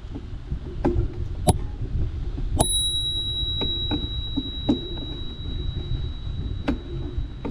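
A bicycle bell struck once about two and a half seconds in, its clear high ring sustaining for about five seconds. Around it are scattered clicks and knocks from the bike and a steady low rumble.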